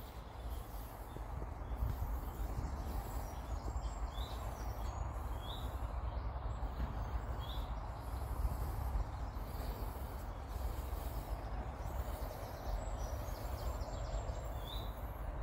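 Steady outdoor background rumble and hiss, with a small bird giving short chirps every second or two.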